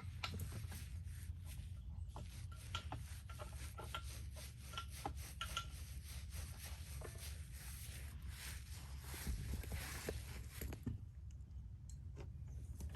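Paintbrush scrubbing thick paint onto the rough end grain of a sawn log, a steady scratchy rubbing with small knocks, which stops near the end.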